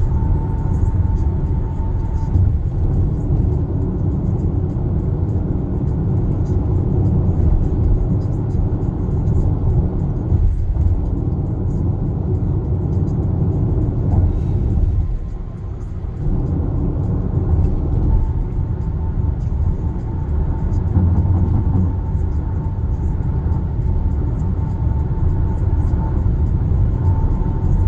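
Steady low road and tyre rumble inside the cabin of a Kia Sportage NQ5 cruising on an expressway at about 100 km/h. The rumble eases briefly about halfway through.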